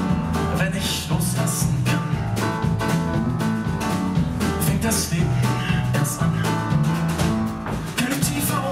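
Live band playing a pop song on grand piano, drum kit and electric bass, with steady bass notes under piano chords and regular cymbal strikes.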